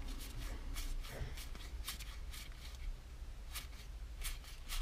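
A deck of plastic-coated car quartet cards being thumbed through by hand, one card after another, with irregular light flicks and clicks.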